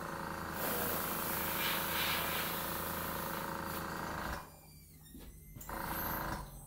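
Airbrush hissing steadily as it sprays paint, over a low steady hum. The hiss cuts off suddenly about four seconds in, then comes back in one short burst and stops again.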